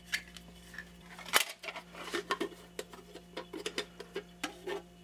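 Cheap plastic pulley-cover door on a mini wood lathe's headstock being handled and swung open and shut: a string of light clicks and taps, with one sharper knock about a second and a half in, over a faint steady hum.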